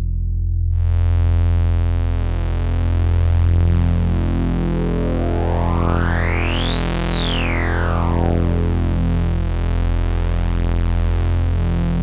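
Sustained low synthesizer drone through a CubuSynth Dual CS-20 resonant multimode filter. The tone brightens suddenly under a second in, then the filter's resonant peak glides slowly up to a high pitch about seven seconds in and back down again.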